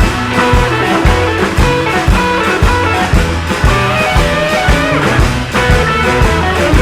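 Blues-rock music with guitar and a steady drum beat.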